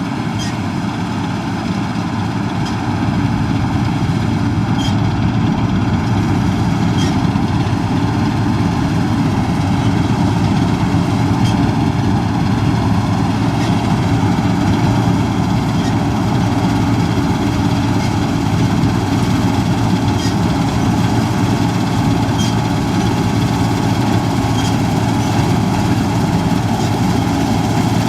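Combine harvester running steadily in a continuous machine drone, with a faint tick about every two seconds.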